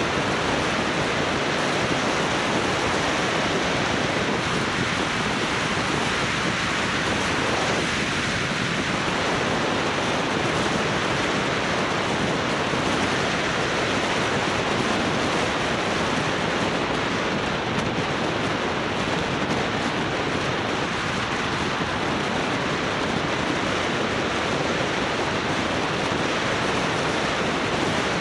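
A steady, even rushing noise with no distinct events, unchanging in level throughout.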